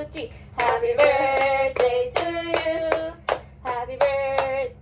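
Women singing a birthday song together in held, steady notes, with hand claps keeping an even beat.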